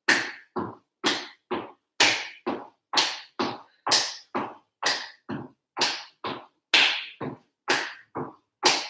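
Steady rhythm of hand claps and stepping feet from marching on the spot on a wooden floor, about two hits a second, alternating louder and softer.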